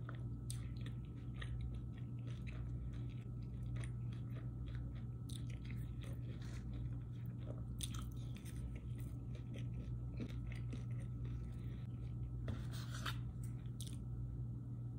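Close-up chewing and crunching of salad greens, with many small sharp clicks as the plastic fork picks through the bowl, over a steady low hum.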